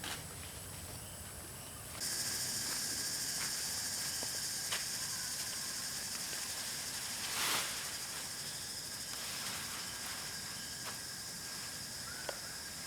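A steady high-pitched insect drone that starts suddenly a couple of seconds in and holds on, with a brief rush of noise about halfway through and a few faint clicks.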